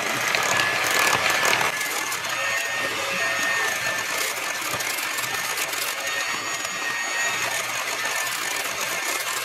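Handheld electric mixer running steadily with a steady whine, its beaters working powdered sugar into a cream cheese mixture in a stainless steel bowl.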